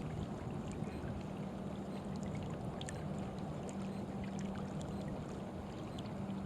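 Steady outdoor background noise, wind and water, with a faint low steady hum and a few faint ticks.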